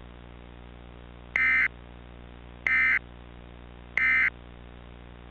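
Three short bursts of Emergency Alert System digital data tones, the end-of-message code that closes an EAS alert, about 1.3 seconds apart over a steady low hum.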